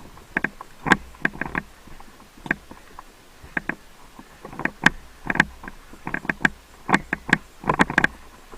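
Airsoft guns firing in short, irregular bursts of sharp pops, a few shots at a time, with pauses between the volleys.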